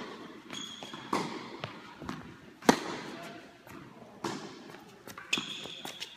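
Tennis rally on an indoor hard court: sharp pops of a ball struck by rackets and bouncing on the court, about every second and a half and echoing in the hall. The loudest hit comes a little under three seconds in.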